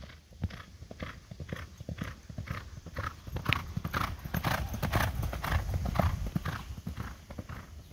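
Thoroughbred racehorse galloping on a dirt track: a quick, steady rhythm of hoofbeats that grows louder as the horse passes close by, then fades as it goes away.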